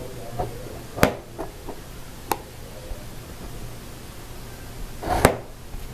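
A few short, sharp knocks or clicks, the loudest about a second in and near the end, over a low steady hum.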